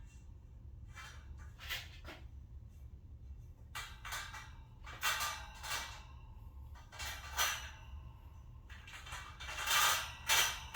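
Steel wire storage shelf rattling and scraping against its poles in irregular bursts as it is worked down onto the pole clips, with a steady low hum underneath.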